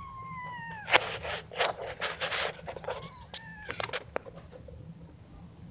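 Newborn kitten mewing: one long, high, falling mew in the first second, then shorter mews about three to four seconds in. Between them comes a run of short scratchy scuffing noises.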